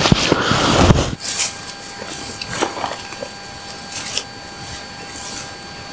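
Firewood being handled and laid on a burning wood campfire. It is loudest in the first second, then scattered crackles and knocks follow.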